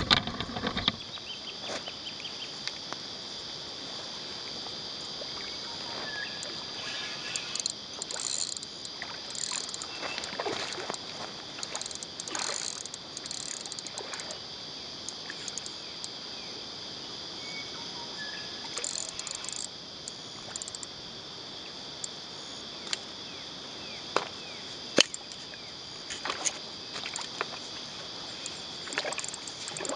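Steady high-pitched insect drone, with scattered short rustles and a few sharp clicks, the loudest about 25 seconds in.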